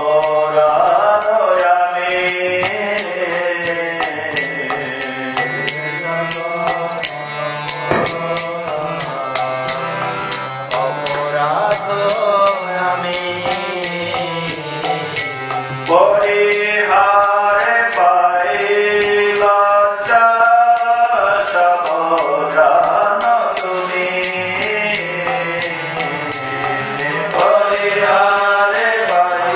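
Devotional mantra chant sung to music, with a steady beat of small percussion.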